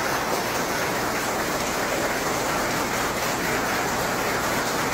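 Applause from a large seated group, many hands clapping at once, dense and steady.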